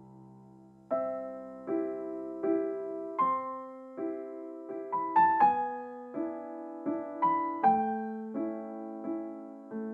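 Background piano music: after a held chord fades out, a gentle melody of single notes begins about a second in, each struck note decaying, roughly one every three-quarters of a second.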